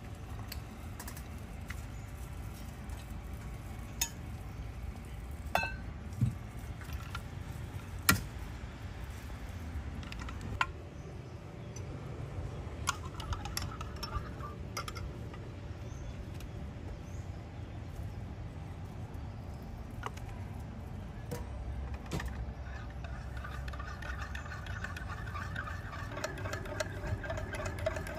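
A few sharp clinks and taps of a metal spoon and barista tools against a glass measuring jug, over a steady low outdoor rumble. A motor's steady hum comes in during the last few seconds and grows louder.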